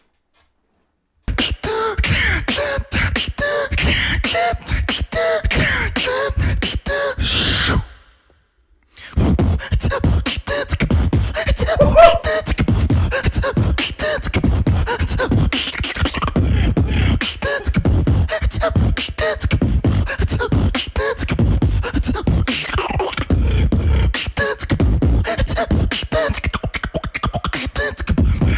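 Human beatboxing: fast, dense vocal drum sounds with heavy bass hits and some pitched melodic notes. It starts about a second in, breaks off briefly near the middle, then carries on.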